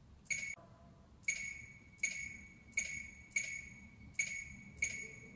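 Short electronic tap clicks, each with a brief ringing tone, about seven of them less than a second apart. They are touch-feedback sounds as the arrow icon next to the offset value box on the tablet oscilloscope is tapped, stepping the vertical offset.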